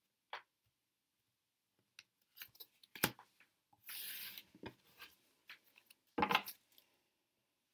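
Tarot cards being handled on a wooden table: scattered taps and rubs as a card is drawn from the deck and laid on the spread. There is a longer sliding scrape about four seconds in and sharper taps around three and six seconds in.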